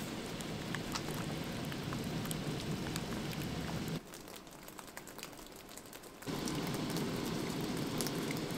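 Maple sap boiling hard in a stainless-steel evaporator pan: a steady bubbling hiss peppered with small pops. It drops much quieter for about two seconds just past the middle, then comes back.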